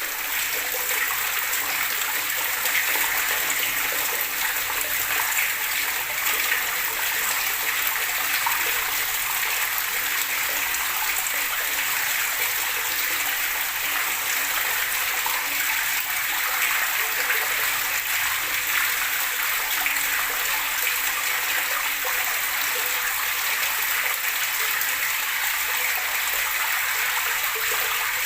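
Gurgling running water, a steady even splash and rush with no pauses or changes.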